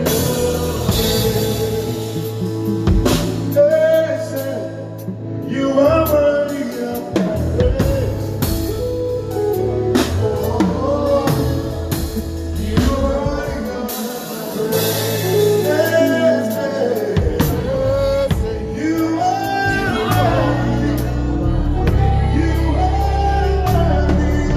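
A live band playing: a singer over a drum kit and deep bass notes, with the bass dropping out twice for a few seconds.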